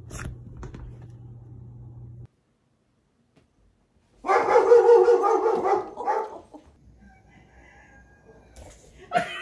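A pet's loud, drawn-out vocal call lasting about two seconds, starting about four seconds in. Before it, a steady low hum runs for about two seconds and cuts off suddenly.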